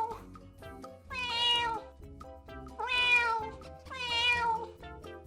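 Domestic cat meowing: three drawn-out meows, each about a second and a half after the last, after the tail of an earlier one.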